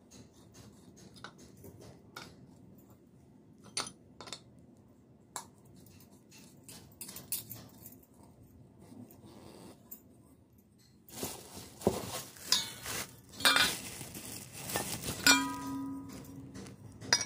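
Metal lamp-holder parts clinking and knocking as they are handled and screwed together. There are scattered light taps at first, then from about 11 seconds in busier clanking and rustling, with a metal piece ringing briefly near the end.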